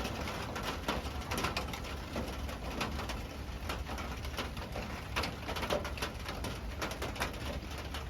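Heavy rain falling fast in a storm, an even hiss with many sharp drop ticks over a low steady rumble.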